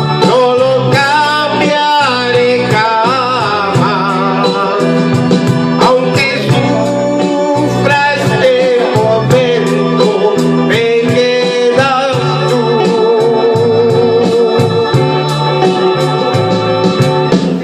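Music: a romantic song led by an electronic organ playing a wavering melody with vibrato over sustained chords.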